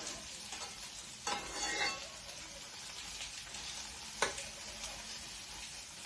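Crushed garlic and ginger sizzling steadily in hot ghee in a pan, being fried until lightly browned. A utensil scrapes the pan briefly about a second in, and there is a single sharp tap about four seconds in.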